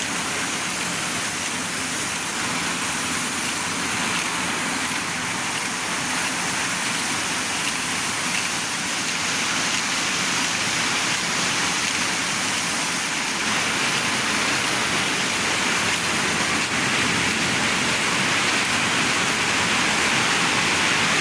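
Lohia Corp circular looms running together in a weaving hall: a loud, steady mechanical whir and hiss that grows a little louder in the second half.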